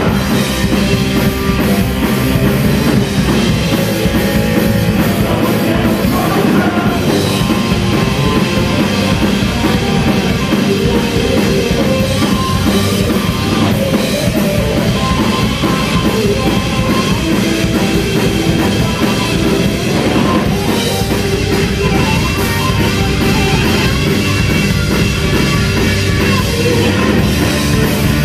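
Live rock band playing loud and without a break: distorted electric guitars, bass guitar and a drum kit.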